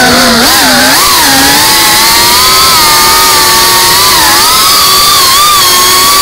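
FPV quadcopter's brushless motors whining, the pitch dipping and rising with throttle in the first second or two, then holding fairly steady as it cruises low.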